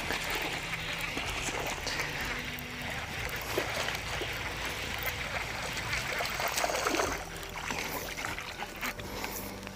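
Water splashing and trickling as a hooked fish is reeled in and lifted out of the pond.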